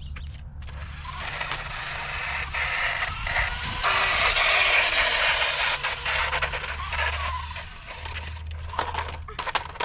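Toy RC motorcycle driving across rough skatepark concrete, its motor and tyres making a hissing, scraping noise. The noise builds about a second in, is loudest around the middle and eases near the end.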